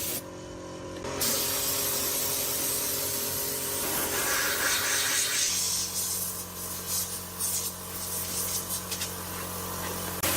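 Steady hiss of a compressed-air spray, with a steady low hum under it; the hiss breaks off for about a second near the start, then resumes.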